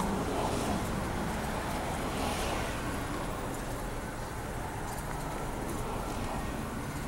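Steady car engine and road noise from a vehicle driving along.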